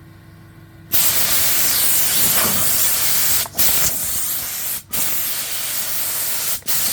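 Compressed air blowing from an air compressor's hose: a loud hiss that starts about a second in and is cut briefly three times.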